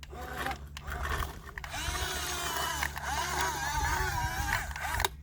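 Small electric motor of a radio-controlled excavator whirring steadily. From about two seconds in, high-pitched wavering calls or voices sound over it.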